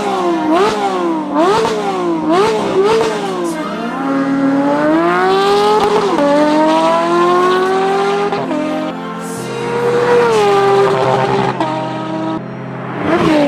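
Porsche 992 GT3's flat-six engine revving hard: about six quick throttle blips in the first few seconds, then long pulls with the pitch climbing and dropping sharply at each upshift, twice, before easing off and a last sharp blip near the end.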